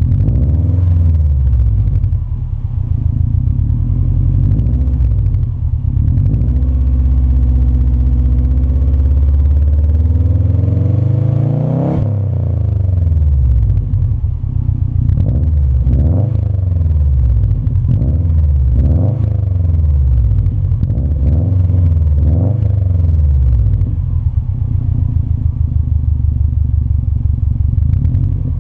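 2015 Subaru WRX STI's turbocharged 2.5-litre flat-four through an Invidia N1 dual-tip exhaust, heard at the tailpipe. It idles, is revved in one long climb that peaks about twelve seconds in and falls away quickly, then gets a run of quick, short throttle blips.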